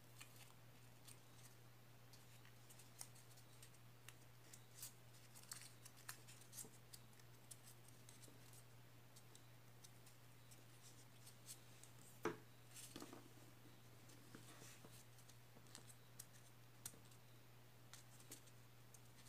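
Near silence with faint, scattered crackles and rustles of a rolled paper spiral rose being pressed and shaped between the fingers, with one sharper click about twelve seconds in, over a low steady hum.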